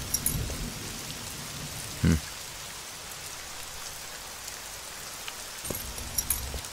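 Steady rain falling, with scattered sharp drip-like ticks. A single dull, deep thump about two seconds in is the loudest sound.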